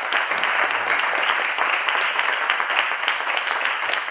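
Audience applauding: many hands clapping steadily, starting to die down near the end.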